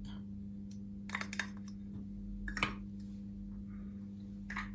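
A few light clicks and taps of a small glass and spoon against a wok as oil is poured in and the glass is taken away: a little cluster about a second in, then single taps, over a steady low hum.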